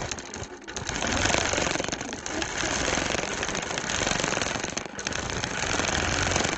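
Longarm quilting machine stitching, its needle going up and down in a fast, even rhythm. It briefly eases off about half a second in and again about five seconds in.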